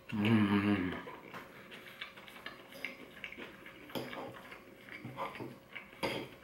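A man's long hummed "mmm" of enjoyment through a mouthful of food, about a second long, followed by light clicks and scrapes of a fork against a ceramic plate as he pulls apart braised beef short rib.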